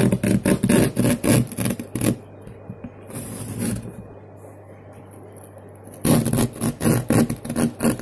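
Serrated blade sawing through corrugated cardboard in rapid back-and-forth rasping strokes. The strokes pause briefly in the middle and pick up again about six seconds in.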